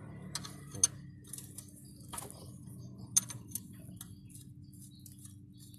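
A wrench working the engine oil-pan drain plug loose: several sharp clicks and taps of tool on bolt, the loudest about a second in and about three seconds in, over a low steady hum.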